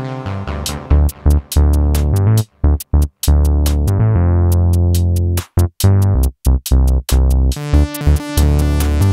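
Electronic music with a drum-machine beat, heavy bass and synthesizer, stopping dead for short breaks a few times before the beat comes back.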